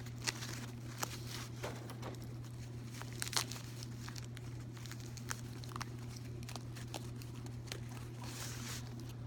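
Light rustling and crinkling of packaging as a purse is handled, with a few sharp clicks and taps, over a steady low hum.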